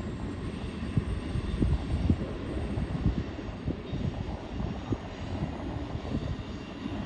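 Long freight train of tank cars rolling along the track, a steady low rumble with irregular low thumps.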